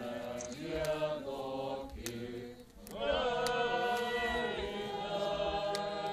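A choir singing long held chords in several voice parts, with a short break a little before the middle. Sharp clicks sound now and then over the singing.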